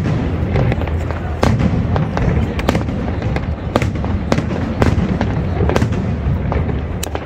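Aerial fireworks going off: a rapid, irregular series of sharp bangs and crackles over a continuous low rumble of further explosions.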